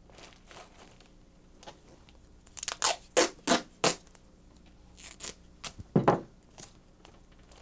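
Adhesive tape pulled off its roll in a quick series of short ripping pulls about three seconds in, followed by a few more rips up to about six seconds in.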